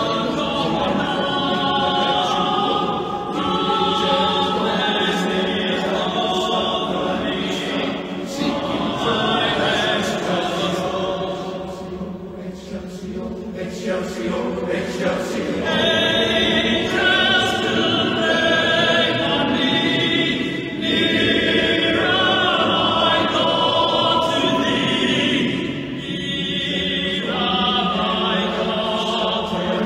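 A choir singing in long held notes, softening for a few seconds around the middle and then swelling again.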